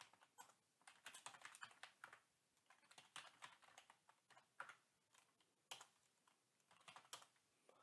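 Faint computer keyboard typing: short runs of keystrokes with brief pauses between them, as a command is typed at a terminal.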